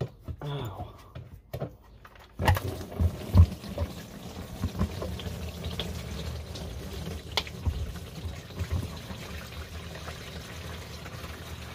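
Engine oil from a Ford Focus ST225's sump starting to pour out of the drain hole about two and a half seconds in, after a few light knocks as the sump plug is undone, then running out in a steady stream.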